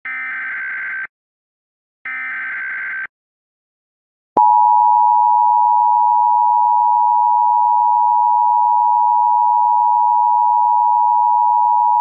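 Emergency Alert System SAME header: two short digital data bursts, each about a second long, with a buzzy warble between two pitches. About four seconds in, the EAS attention signal starts: a loud, steady two-tone chord that holds. Together they mark the start of an emergency alert.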